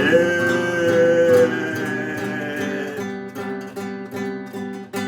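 Acoustic guitar strumming chords, with a long held sung note over it for about the first second and a half. After that come plain, even strums, about three a second.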